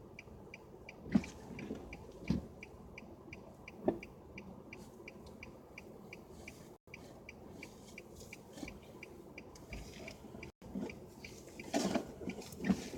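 A car's electronic warning chime dinging steadily and rapidly, about three times a second. A few dull thumps come in the first four seconds, and there is handling noise near the end.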